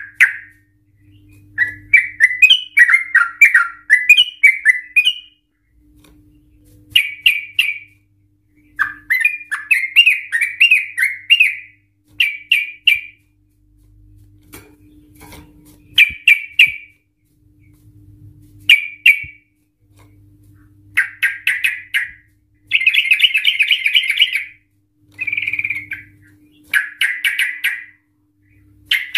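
Yellow-vented bulbul (trucukan) singing loudly in full song: bubbling, chattering phrases a second or two long, repeated with short pauses, and one longer, rapid run later on.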